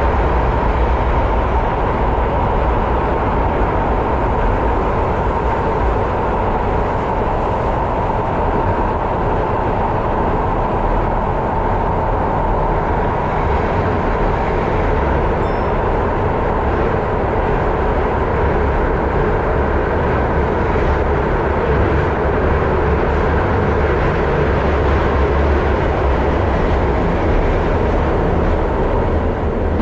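Keihan 800 series electric train running steadily through a subway tunnel, a continuous rumble of wheels on rails and running gear heard inside the car.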